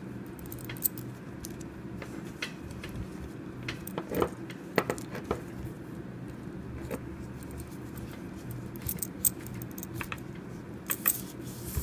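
Scattered light clicks and rustling of paracord being worked back through a woven collar with a metal fid, the collar's metal buckle clinking now and then, loudest around four to five seconds in and again near the end.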